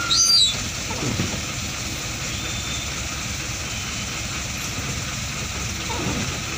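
Windscreen wiper sweeping a rain-wet windscreen: a short squeak rising and falling in pitch at the start, and lower sweeping sounds about a second in and again near the end, over a steady vehicle hum.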